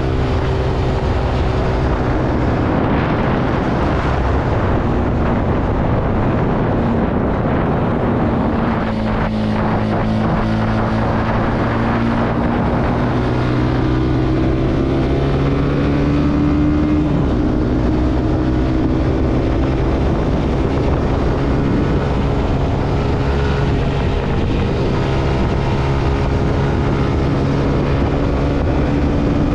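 Zontes C125 motorcycle engine running under way, with wind rushing on the microphone. Its pitch drops about nine seconds in, then climbs steadily over several seconds as the bike gathers speed, and eases off again later.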